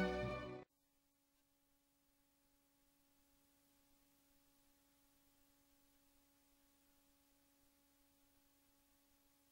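Orchestral background music with strings, cutting off sharply about half a second in, then near silence with only a faint steady hum.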